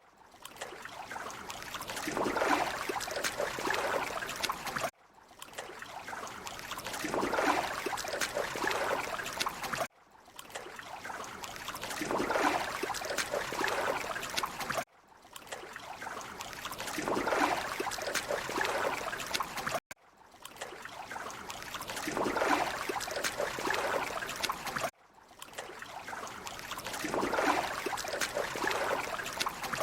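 Running water trickling and splashing. A clip of about five seconds repeats six times, each time rising from quiet and cutting off suddenly.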